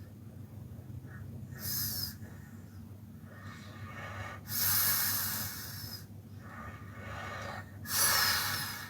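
A man snoring in his sleep: three noisy snoring breaths about three seconds apart, the middle one the longest and loudest.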